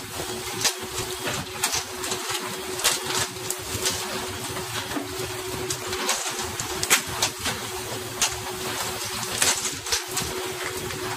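A fishing boat's engine drone and rushing water spray along the hull, with a steady hum, broken by frequent irregular sharp slaps and knocks as pole-caught tuna are swung aboard and thrash on the deck.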